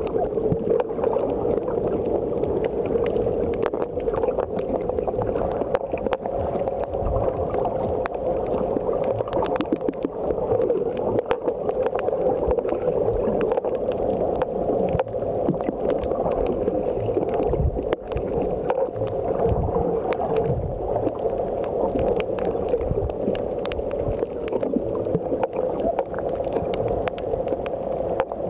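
Underwater ambience on a coral reef: a steady watery rush with a constant hum, scattered with many small clicks and crackles and an occasional low bump.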